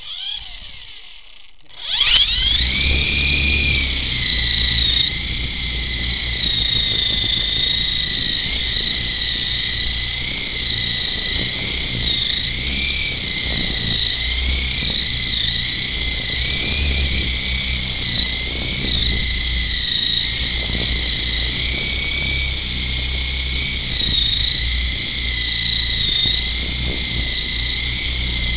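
Small RC toy helicopter's electric motor and gears whining, heard from a camera mounted on the model: it starts suddenly about two seconds in, then holds a steady high whine that wavers slightly in pitch as the model flies. Under it runs a low rumble of air buffeting the microphone.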